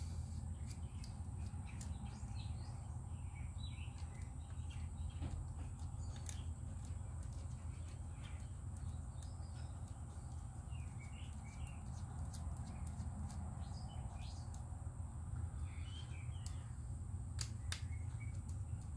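Light scattered clicks and ticks of a small hex driver working screws out of a plastic RC crawler axle, a few of them near the end, over a steady low hum. A few faint bird chirps come through in the middle.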